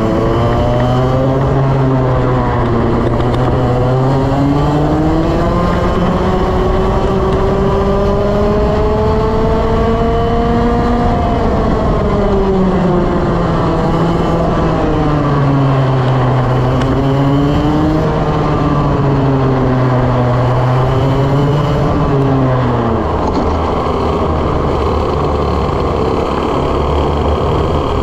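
Two-stroke racing kart engine heard onboard at full race pace, its note climbing for several seconds on the straights and dropping sharply into each corner. About three-quarters of the way through the pitch falls away to a lower, steadier rumble as the kart slows off the pace.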